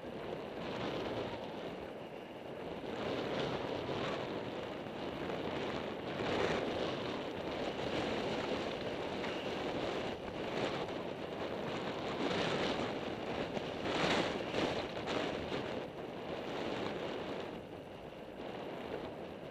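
Rushing wind on the microphone of a camera moving along a dirt road, mixed with road noise from rolling over the surface. The noise swells and eases, with a few stronger gusts.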